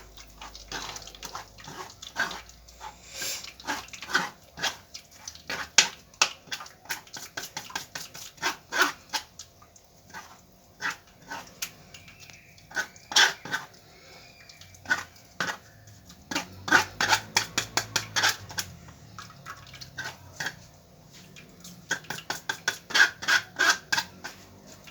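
A spoon scraping and tapping against a strainer as blended lemon and orange juice is pressed through it to hold back the pulp and peel. The clicks are irregular and come in quicker runs in the second half.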